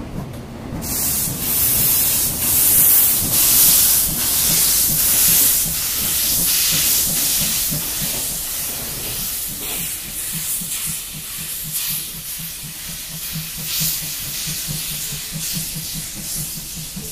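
JNR Class C56 steam locomotive blowing steam from its cylinder drain cocks as it moves off, a loud hiss that starts suddenly about a second in and is loudest in the first few seconds. A low pulsing of about four beats a second runs under the hiss in the second half.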